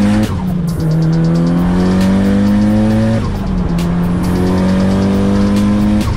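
Mitsubishi Lancer Evolution VIII's turbocharged four-cylinder engine heard from inside the cabin as the car accelerates hard through the gears. The engine note climbs steadily in pitch and drops at each upshift, three times, about three seconds apart.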